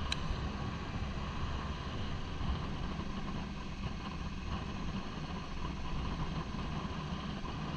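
Triumph adventure motorcycle's engine running steadily at low speed, with a brief click right at the start.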